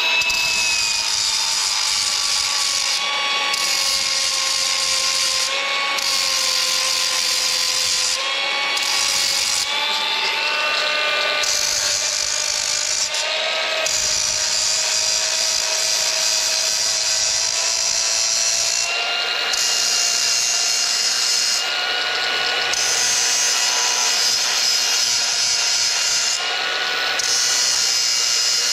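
Cordless angle grinder running without a break, grinding a new edge onto the carbide teeth of a stump grinder's cutter wheel. The motor's whine sags and recovers in pitch as it bites, and the high grinding hiss breaks off briefly several times.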